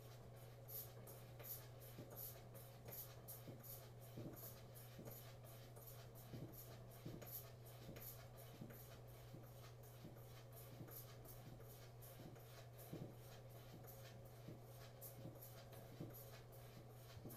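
Quick, even rhythm of faint scratchy strokes as a 7/8-inch straight razor is stropped back and forth on a hanging strop, over a low steady hum.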